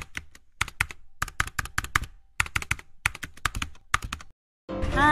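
Keyboard typing sound effect: short runs of quick key clicks, a run about every second, stopping about four seconds in. Just before the end a voice and outdoor background noise cut in louder.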